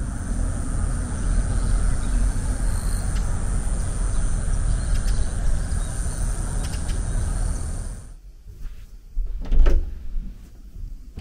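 Steady outdoor noise: a low rumble and hiss with a thin, steady high whine above it. It stops abruptly about eight seconds in, and a short sliding scrape follows about a second and a half later.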